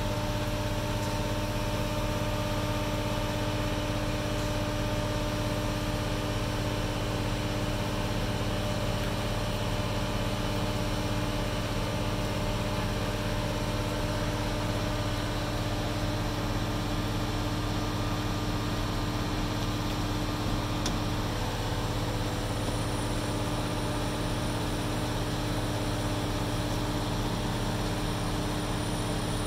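Mobile crane's diesel engine running steadily while it holds a sailboat in its slings, a constant low rumble with a steady hum.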